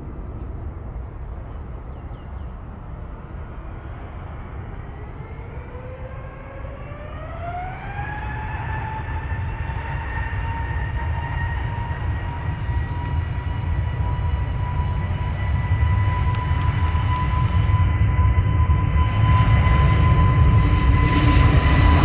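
Jet airliner engines spooling up: a whine rises in pitch over a few seconds, then holds steady over a low rumble. The sound grows steadily louder toward the end.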